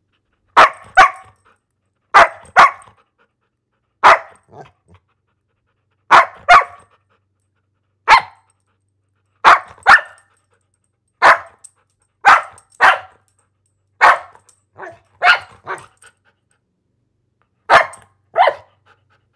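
A dog barking in short volleys, mostly two sharp barks at a time, repeated about every two seconds with silent gaps between.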